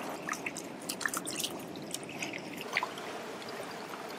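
Small splashes and drips of shallow seawater as foraged greens are rinsed in it by hand, over a steady hiss of surf.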